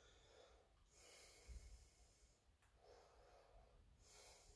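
Near silence, with a few faint, slow breaths in and out from a man holding a stretch after a hard workout.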